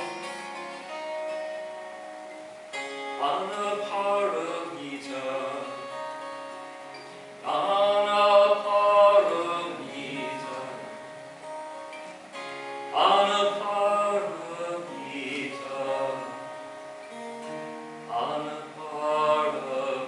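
Twelve-string acoustic guitar strummed with a man's voice singing over it, the song rising in louder sung phrases every few seconds.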